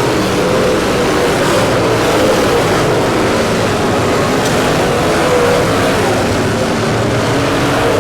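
Dirt late model race car engine running hard, a loud steady drone whose pitch wavers slightly up and down.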